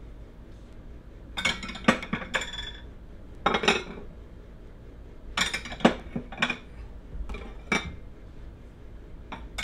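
Plates clinking as they are set down and stacked on a cabinet shelf, in about four short clusters of clinks.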